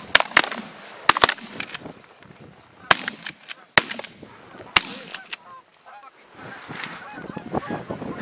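A volley of shotgun shots, about nine sharp reports over the first five seconds or so, mixed with Canada geese honking, the calls thickening again near the end.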